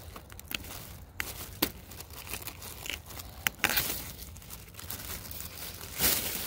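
Crinkling and rustling of a paper sky lantern being handled and opened out: scattered short crackles, with louder rustles about three and a half seconds in and again near the end.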